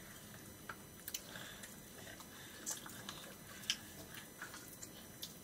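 Quiet eating sounds: fingers scooping rice from metal plates, giving a few scattered soft clicks and taps, with faint chewing.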